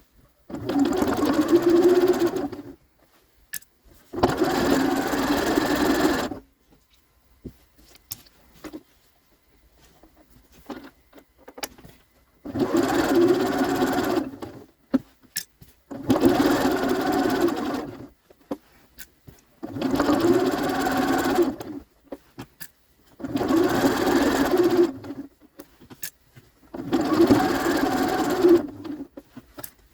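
Electric sewing machine stitching fabric strips together, run in seven short bursts of about two seconds each, with small clicks and handling noises in the pauses between runs.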